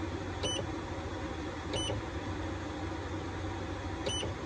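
Growatt MPPT charge controller giving three short high beeps as its display button is pressed, each press stepping the screen to the next reading.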